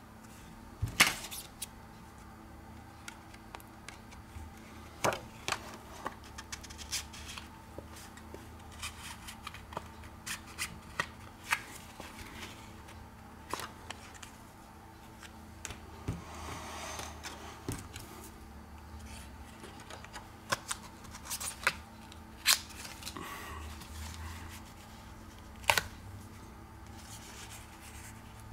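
Plastic opening picks clicking and scraping against the edge of an Essential Phone PH-1 as they are worked around the frame to cut the screen adhesive. Irregular sharp clicks, the loudest about a second in and near the end, with a longer scrape a little past halfway.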